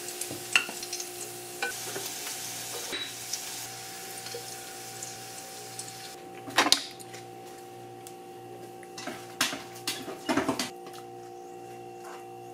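Pork sizzling in a grill pan with a few light clicks of tongs turning it. Then, from about six seconds in, several louder clatters of dishes and a pan being set down on a stone counter.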